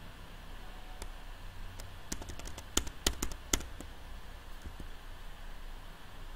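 A quick run of about a dozen sharp clicks from a computer keyboard and mouse, about two to three and a half seconds in, over a low steady hum.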